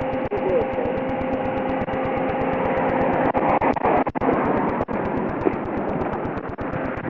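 Police patrol car running: a steady engine and road noise with a constant hum, and faint voices about halfway through.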